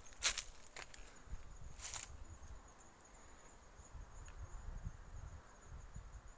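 Two footsteps on gravel in the first two seconds, then the walker stands still. A faint, steady, high-pitched insect trill runs underneath.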